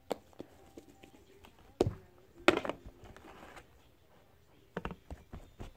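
Handling sounds of a plastic slime container and the slime in it: scattered soft taps and clicks, with two louder knocks about two and two and a half seconds in.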